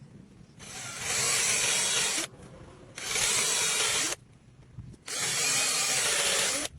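A power tool working wood in three bursts of one to two seconds each, with short pauses between.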